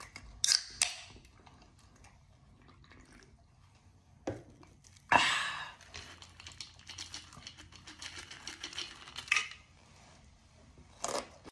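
Corn nuts rattling out of a plastic tube into the mouth about five seconds in, then a run of rapid, crackly crunching as the hard toasted corn kernels are chewed. A few sharp clicks come at the start.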